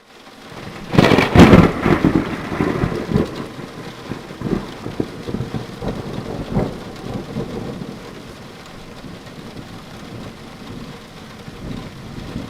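Thunderstorm sound effect: a loud thunderclap about a second in, a few lesser rumbles over the next several seconds, and steady rain throughout.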